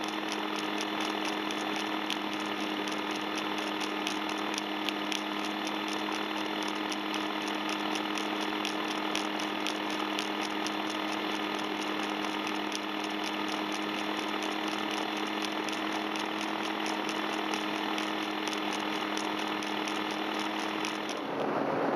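Tandem paramotor trike's engine and propeller running steadily in flight: a constant hum with a fast, even ticking over it. Near the end it gives way to a louder rushing noise.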